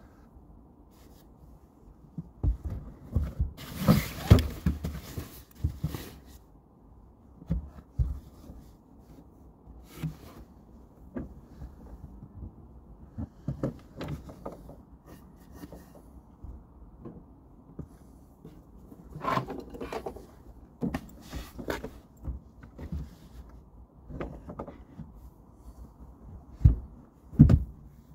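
Wooden bed boards and cushions being handled and shifted around inside a van during a bed conversion: irregular knocks, thumps and rustling. There is a loud scrape and thump about four seconds in and another loud thump near the end.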